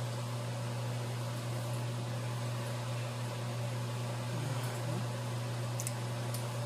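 A steady low mechanical hum, such as a fan or appliance running in a room, with a few faint light clicks near the end.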